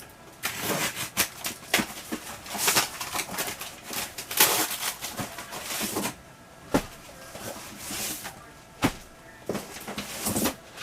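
Cardboard shipping box being cut open and handled: irregular scraping, tearing and rustling, with a few sharp knocks about two-thirds of the way through.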